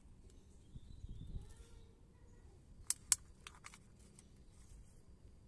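Quiet handling noises from a hand at hanging plastic-bottle planters of mustard greens: two sharp clicks about three seconds in, then a few lighter ticks.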